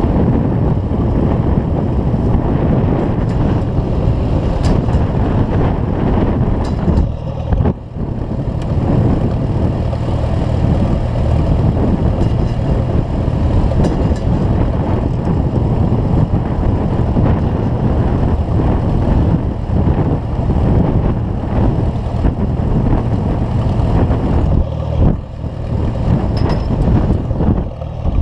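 Case 730 tractor's four-cylinder engine running at a steady idle, heard close up from the tractor itself.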